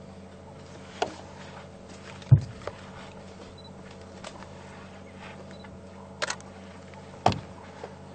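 A few sharp knocks over a steady low hum. The loudest, a heavy thump, comes about two seconds in; a quick double knock follows near six seconds and another knock about a second later.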